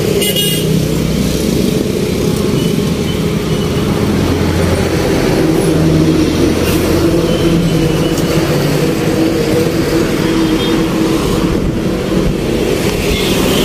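A truck engine idling steadily close by, a steady low hum, with road traffic passing in the background.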